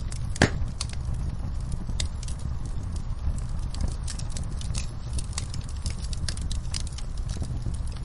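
Wood fire crackling: irregular sharp pops and snaps over a steady low rumble, with one louder pop about half a second in.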